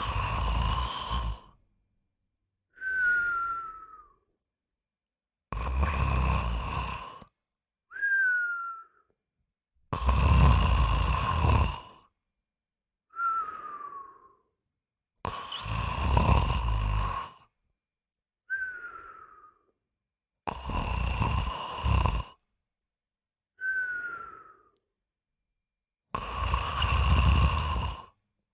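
A person snoring in an even rhythm: a rough snore, then about a second later a short whistle that falls in pitch, repeating about every five seconds, six times over.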